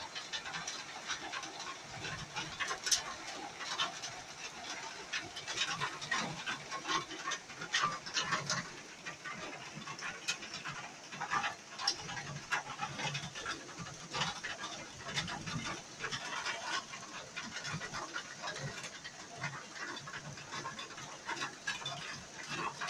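Heavy summer rain falling steadily, with many irregular close taps of drops striking the window and the plastic film on it.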